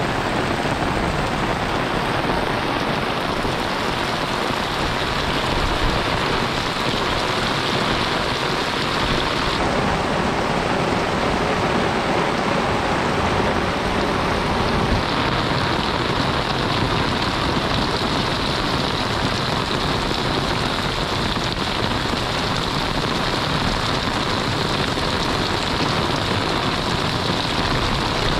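Heavy monsoon rain falling steadily, a dense even hiss of drops on the ground and surfaces around.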